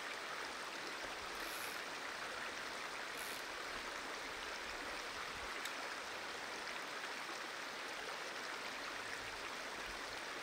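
Shallow rocky stream flowing steadily over stones, an even rushing of water.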